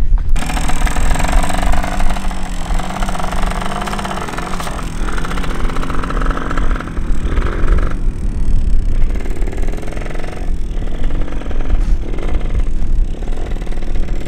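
Small dirt bike's engine running and revving as it pulls away and rides across the sand, its pitch rising and falling with the throttle. It grows fainter and more broken in the second half as the bike moves off, over a steady low rumble.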